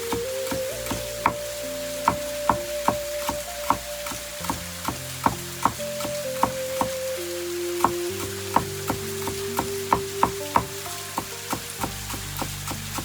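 Instrumental music of held notes changing pitch in steps, over a string of sharp clicks and pops, about two or three a second.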